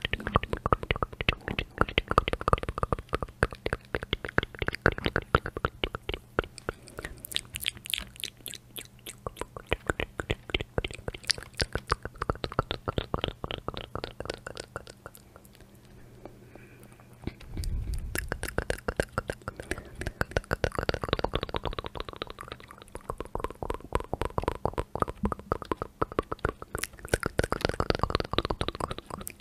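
Close-miked ASMR mouth sounds, rapid wet clicks and smacks, mixed with fingertips tapping on the keys of a backlit computer keyboard. They run almost without break, ease off briefly just past the middle, then return with heavier, deeper taps.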